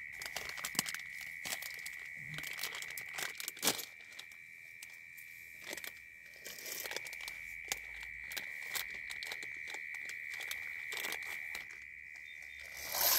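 Plastic food packets and paper crinkling and rustling as they are handled, with many small crackles and a louder tearing rush near the end, over a steady high whine.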